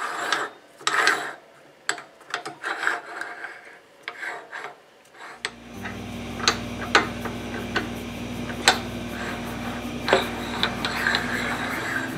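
The jaws of a self-centering four-jaw lathe chuck scrape and click as a chuck key turns the scroll, with irregular metal-on-metal rasping and several sharp clicks. About halfway through, a steady low hum starts and continues under the clicks.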